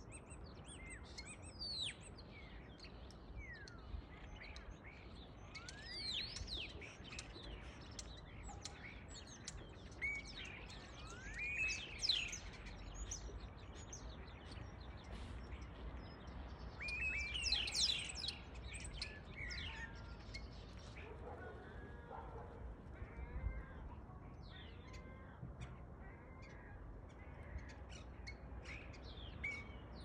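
A flock of starlings calling from a tree: a busy chorus of whistles and chatter, with many rising and falling whistled notes and louder bursts near the middle.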